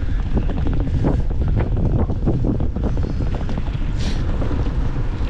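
Strong wind buffeting the microphone while riding a bicycle: a loud, steady low rumble.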